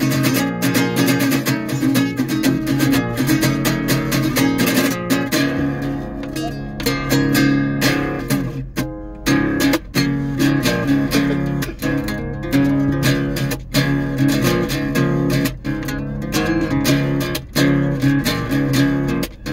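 Acoustic guitar strummed in a steady rhythm, playing the song's chords without singing.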